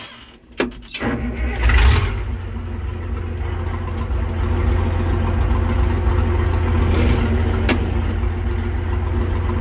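Unmuffled Cummins 855 inline-six diesel in a Versatile 800 tractor starting: it catches about a second in, runs up briefly, then settles into a steady loud run. There is one sharp click late on.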